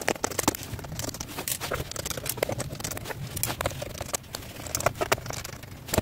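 Irregular light clicks, taps and scrapes of a screwdriver and hands on the plastic underside of an Acer Aspire 1 laptop as the last bottom-case screws are taken out and set down.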